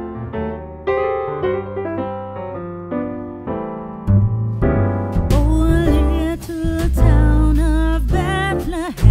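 Music: a piano playing chords, joined about four seconds in by bass and a fuller band, with a voice singing from about five seconds in.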